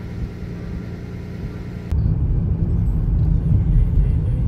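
Steady low rumble of a car driving on a snow- and ice-covered road, heard from inside the cabin, cutting in suddenly about two seconds in; before that only a quieter steady background hiss.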